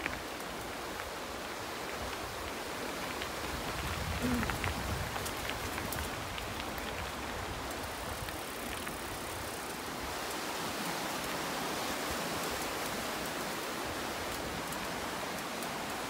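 Steady even hiss with scattered faint clicks, the rolling and wind noise of a mountain bike ride picked up by a camera on the move.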